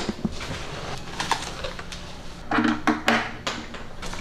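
Handling noise from setting up a portable PA speaker: scattered clicks and knocks of hands, cables and plugs against the unit, with a cluster of them about two and a half seconds in.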